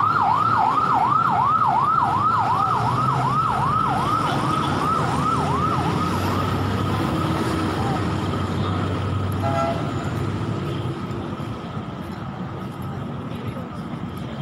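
An emergency vehicle's siren in fast yelp mode, sweeping up and down about twice a second; about six seconds in the sweeping stops, leaving a fainter steady tone that fades, over a low rumble of street traffic.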